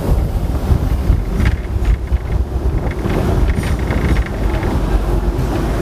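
Hong Kong double-decker tram running along its track: a steady low rumble with scattered knocks and rattles, and wind buffeting the microphone.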